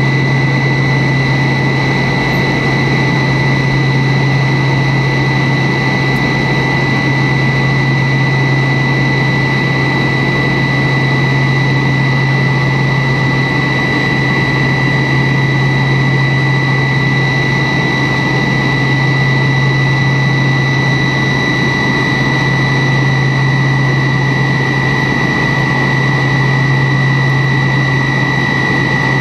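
Steady cabin noise inside a Tupolev Tu-134B-3 in flight: the drone of its two rear-mounted Soloviev D-30 turbofans, a constant low hum under a steady high whine.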